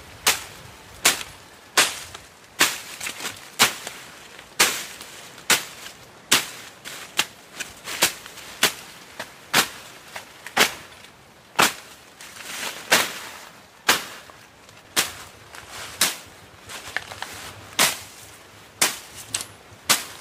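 Machete slashing through weeds and grass, sharp swishing cuts at an even pace of about one a second.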